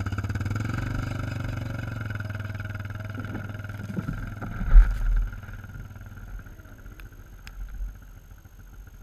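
Yamaha side-by-side UTV engine running as the vehicle pulls away, its hum fading steadily. A loud low thump about halfway through.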